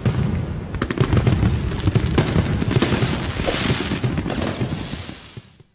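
Fireworks: a rapid, dense crackle of bangs over low booms, dying away near the end.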